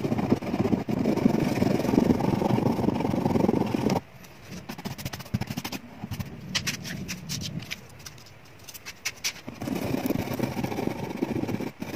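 Metal tool scraping out the saddle slot of a classical guitar's new bridge with a dense rasping noise. It stops about four seconds in, with a run of light clicks and taps at the slot, and the scraping starts again near the end.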